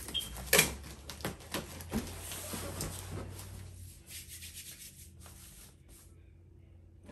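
Packaging being handled: rustling and rubbing with a run of sharp clicks and knocks, the loudest about half a second in, dying down to a few faint ticks after about four seconds.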